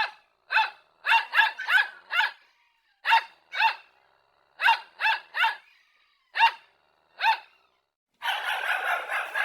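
Dog barking in short, high-pitched barks, some single and some in quick runs of two or three, then a denser flurry of barking near the end.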